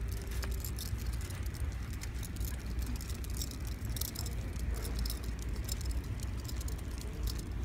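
Wheelchair rolling over a hard floor with a steady low rumble, while the metal clips, rings and pull bar of a dog's pulling harness rattle and click.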